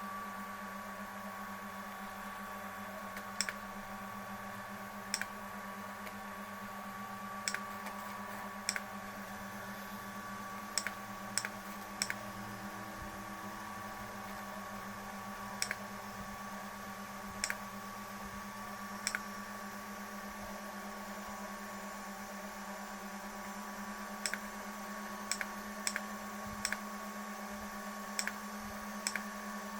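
A steady electrical hum with a thin high whine over it, broken by sharp single clicks at irregular intervals, a few every several seconds.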